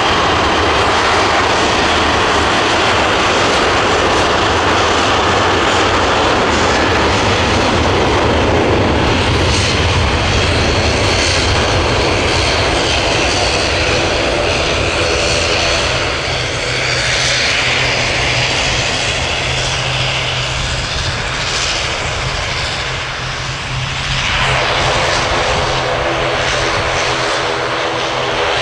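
Boeing 737-800's twin CFM56-7B turbofan engines at takeoff thrust during the takeoff roll, loud and steady. Near the end, as the jet lifts off and climbs away, several steady humming tones come through under the engine noise.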